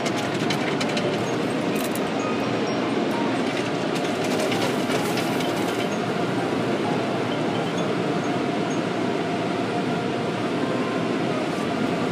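Automatic tunnel car wash heard from inside the car's cabin: water spray streaming onto the windshield and body, a steady rushing noise with scattered sharp ticks of water in the first half.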